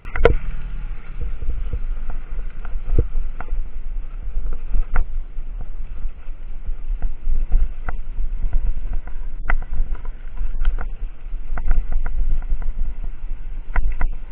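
Steady low rumble of wind and road vibration on a bicycle-mounted camera, with scattered sharp clicks and knocks from the bike rattling over a rough concrete road.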